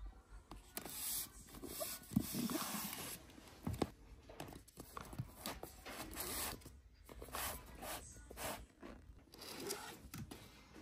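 Books being handled on a shelf: covers scraping and rustling as they are slid and pulled out, with a few light knocks, the clearest about two and four seconds in.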